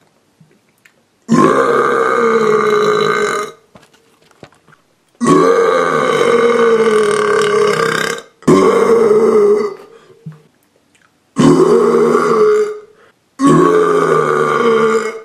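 A person burping five long, loud burps in a row, each lasting one and a half to three seconds, with short pauses between them.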